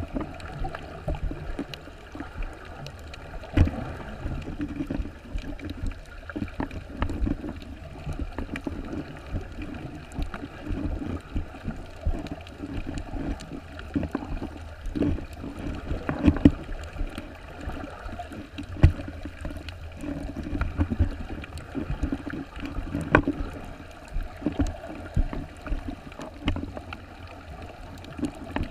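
Muffled water sloshing and gurgling heard through an underwater camera's housing, with frequent small knocks and clicks.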